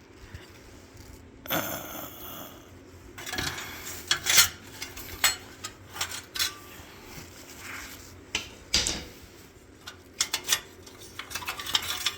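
Loose metal shield on an Acura MDX being worked by hand, giving irregular metallic clinks and clanks. Its looseness is the cause of the engine rattling noise.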